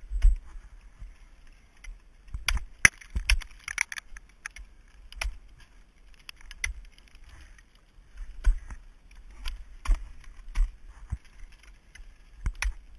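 Ice axe picks and crampon points striking frozen waterfall ice during a climb: a string of sharp, irregular impacts, several coming in quick clusters of two or three blows.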